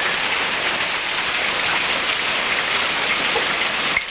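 Hail and heavy rain coming down hard: a steady, dense hiss.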